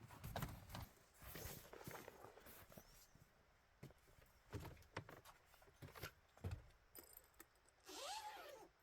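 Scattered faint knocks, clinks and rustling of camping gear being handled, with a zipper pulled in a quick sweep near the end.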